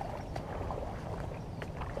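River water lapping and trickling at the edge of a gravel bank, with irregular small splashes over a low steady rumble.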